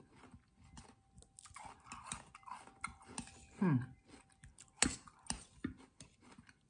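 Close-up chewing of a cold dessert of water chestnuts and palm seeds in syrup, with a spoon clicking and scraping against the bowl. A few sharp clicks come about five seconds in, and there is a brief falling hum a little before them.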